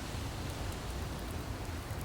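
Burning logs in a wood fire, a steady hiss with a few faint crackles.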